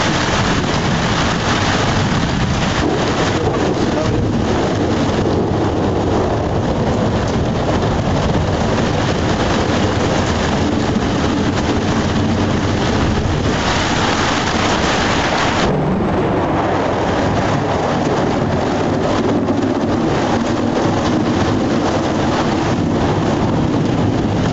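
Steady heavy rain during a thunderstorm, with thunder rumbling underneath. About fourteen seconds in, the hiss turns brighter for about two seconds, then drops off suddenly.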